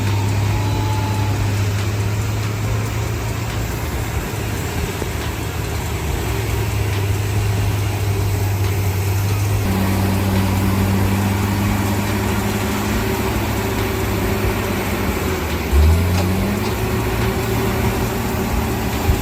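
Heavy machine's diesel engine running steadily, with a brief rise in engine pitch about three-quarters of the way through.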